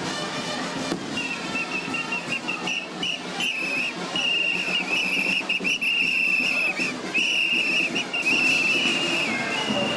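Plastic whistles blown by young revellers: long, warbling high blasts with short breaks, over the general noise of a street crowd.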